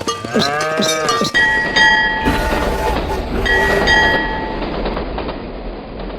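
Train running with a steady rumble while its horn sounds twice, about a second and a half in and again about three and a half seconds in. The rumble fades near the end.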